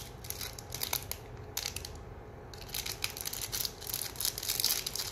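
A small crinkly plastic toy wrapper being torn and pulled open by hand: rapid crackling and crinkling that eases off briefly and then comes denser in the second half.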